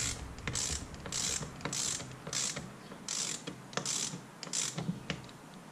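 Hand ratchet wrench clicking in a series of short back-strokes, about one and a half a second, as bolts on a hydrostatic transmission case are tightened down to seat a bearing. The clicking stops about five seconds in.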